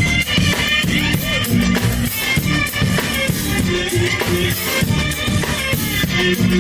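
Live street band playing an upbeat tune, with drums keeping a steady beat under pitched melody instruments.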